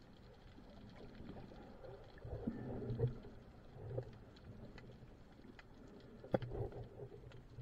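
Muffled underwater sound through a camera's waterproof housing: low rumbling surges of moving water that swell a few times, with faint scattered clicks and one sharp click about six seconds in.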